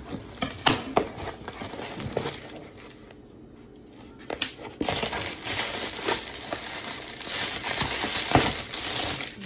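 Packaging being opened by hand: a cardboard box, paper and plastic wrapping crinkling and rustling, with scattered sharp taps and clicks. The crinkling grows dense and continuous in the second half.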